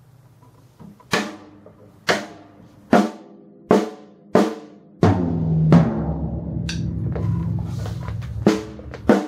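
Acoustic drum kit struck: five single hits about a second apart, each ringing out. About halfway it turns into continuous fast playing, a roll with a heavy low boom, and two more separate hits come near the end.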